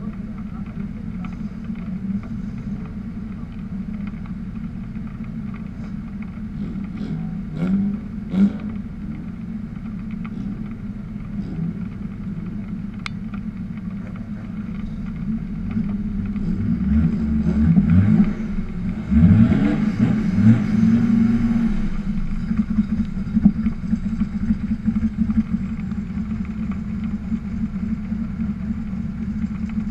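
Drift car engines idling steadily, with a couple of short rev blips about eight seconds in and a louder run of revs rising and falling from about 16 to 22 seconds in.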